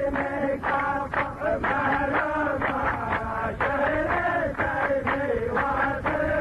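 A man's voice chanting Arabic verse in a slow, drawn-out melody, the pitch rising and falling on long held vowels.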